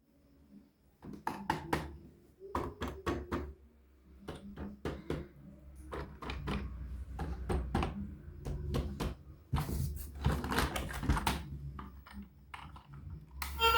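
Irregular clusters of sharp clicks, taps and knocks from hard objects being handled, over a low steady hum. Music comes in just before the end.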